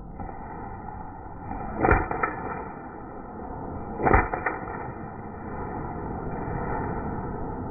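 An airsoft handgun firing in two pairs of sharp cracks about two seconds apart, each pair a loud crack followed about a third of a second later by a weaker one.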